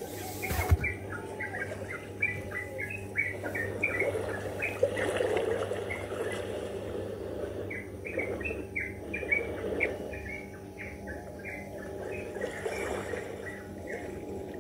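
Small birds chirping in quick runs of short, high chirps, two spells of a few seconds each, over a steady low hum.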